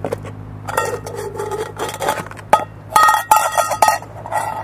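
Small Imusa aluminium baking pot being turned over and rubbed and knocked against a plastic plate, the metal ringing in several short scraping spells with a few sharp knocks, as the baked muffin is worked loose from the pot.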